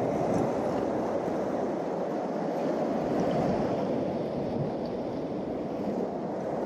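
Ocean water washing against shoreline rocks, a steady rush of surf.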